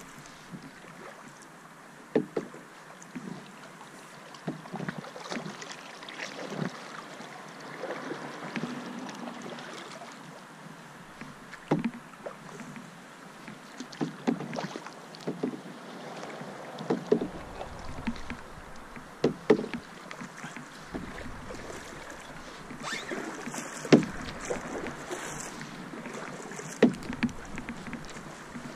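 Canoe being paddled: paddle strokes splashing and dripping in calm water, with sharp knocks every couple of seconds, the loudest about two-thirds of the way through.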